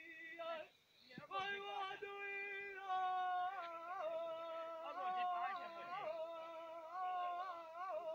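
A man singing a Punjabi dhola with no instruments, in a high voice. He holds long drawn-out notes with wavering turns, after a short pause for breath about a second in.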